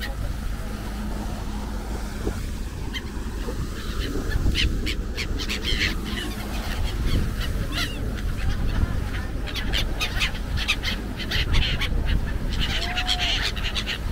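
A flock of black-headed gulls calling, many short cries overlapping one another, over a steady low rumble.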